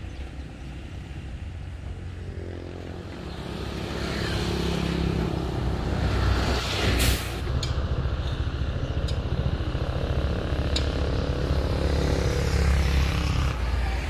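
Motor vehicle engine running, growing louder over the first few seconds, with a brief hiss about seven seconds in.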